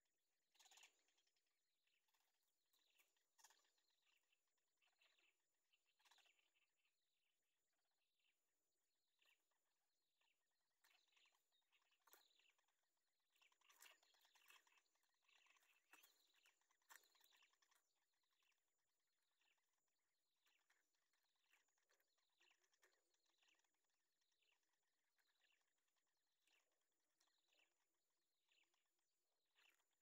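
Faint, irregular chirping of bittern chicks begging at the nest, mixed with light rustling of the nest twigs as they scramble toward the parent to be fed, busiest in the middle.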